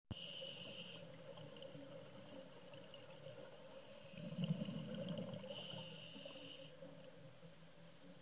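Scuba diver breathing through a regulator underwater: a hissing inhale at the start and again about five and a half seconds in, with a gurgle of exhaled bubbles rising between them, around four to five seconds in.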